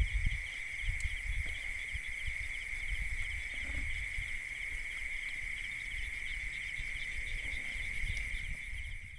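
Night chorus of crickets: a steady high trill with a second insect's pulsing call just above it. Irregular low thumps and rumbles from handling sit underneath.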